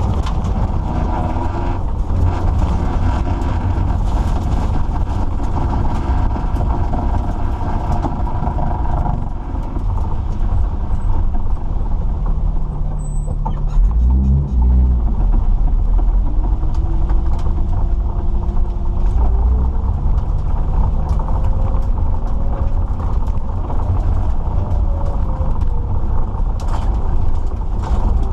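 Mitsubishi Lancer Evolution VII's turbocharged 4G63 four-cylinder running under load, heard from on board the car, with revs falling and rising and a heavy low rumble throughout.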